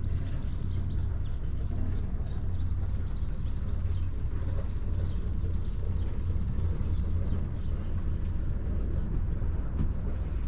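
Small birds chirping repeatedly in short high notes over a steady low rumble; the chirps thin out after about eight seconds.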